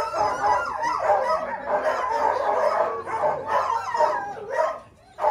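Several sled dogs barking and howling together in a dog yard, their calls overlapping, dying down near the end.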